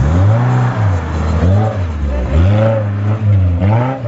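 Suzuki Gypsy off-road 4x4's engine revving hard under load on a muddy climb, the revs rising and falling over and over as the throttle is worked.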